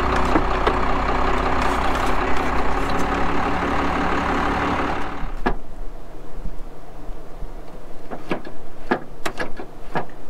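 Truck engine idling steadily while the truck creeps along at idle with a failed throttle cable; it stops abruptly about five seconds in. Then come scattered light clicks and knocks from hands working at the throttle linkage under the hood.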